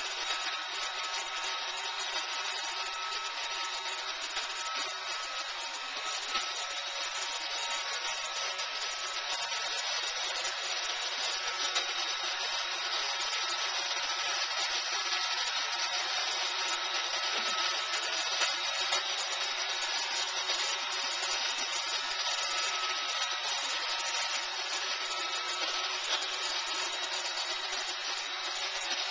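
Roomba robot vacuum running: a steady whir of its vacuum motor and brushes with a thin motor whine.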